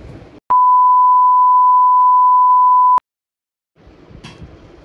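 Edited-in beep tone: one steady, high, pure beep lasting about two and a half seconds. It cuts in and out abruptly, with dead silence on either side.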